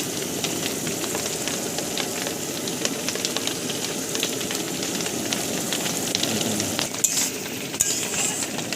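Aloo dum (spiced potato curry) sizzling in the pan, a steady crackle. From about seven seconds in it is stirred, with louder scraping in the pan.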